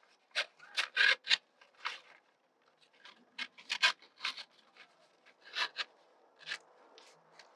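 Scissors cutting lengthwise through a paper strip: irregular crisp snips and paper rustles, in short separate bursts.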